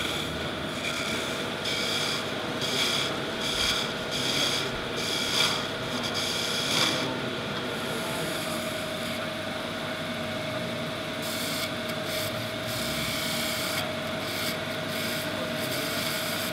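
Wood lathe running with a steady motor whine while a chisel cuts the spinning blackheart sassafras spindle. The cutting comes in a series of short strokes, thickest over the first seven seconds and again near the end.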